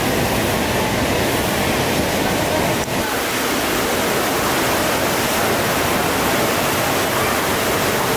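Steady rushing roar of breaking ocean surf, with one brief dip in level about three seconds in.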